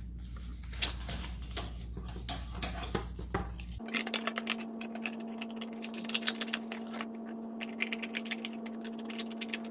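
Irregular light clicks and taps from handling cardboard and craft tools, over a steady background hum.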